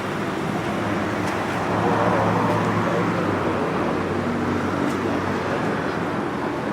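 Road traffic at a busy intersection: vehicle engines running with steady traffic noise, and people's voices mixed in.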